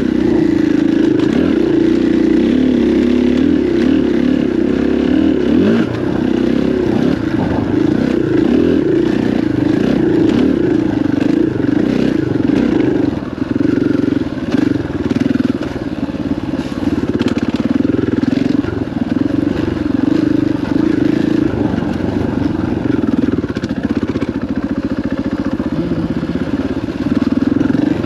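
KTM dirt bike engine running under way on a dirt trail, the throttle rising and easing off, with brief dips in loudness around the middle.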